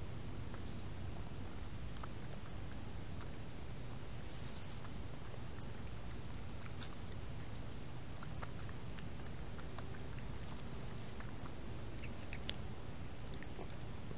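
Crickets trilling steadily in one unbroken high tone over the steady hiss of a trail camera's microphone. Faint scattered clicks come from a raccoon foraging in the grass, with one sharper click about twelve seconds in.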